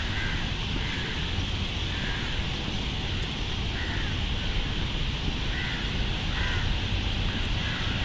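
Crows cawing several times, short calls spread irregularly, over a steady outdoor noise haze.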